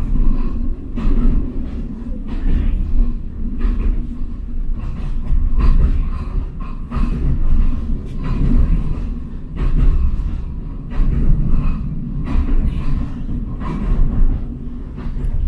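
Passenger train running along the track: a steady low rumble with frequent irregular knocks and rattles of the carriage.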